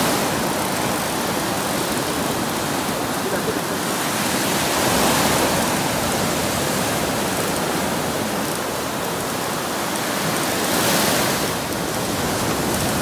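Sea surf breaking on a beach: a steady rushing hiss that swells three times, about every five to six seconds.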